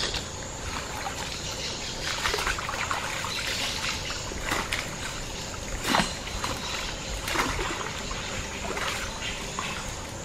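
Water trickling and splashing as a cast net is lifted and worked by someone standing in a creek, water streaming off the mesh. Irregular splashes throughout, the loudest about six seconds in.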